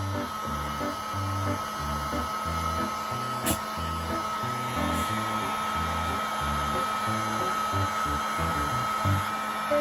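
Hair dryer running steadily with a high whine, blowing a dog's coat dry after a shampoo, under background music with a low bass line.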